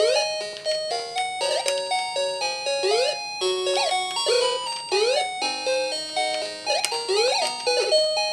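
Sega Game Gear game music: a bright, beeping chiptune melody of stepped notes with quick upward pitch slides about once a second.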